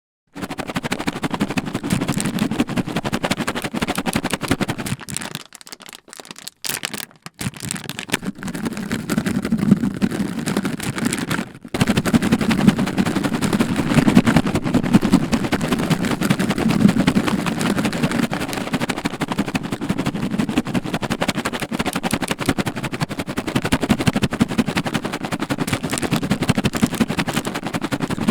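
Cat treats being shaken in their container, a fast continuous rattle with short breaks about six and twelve seconds in.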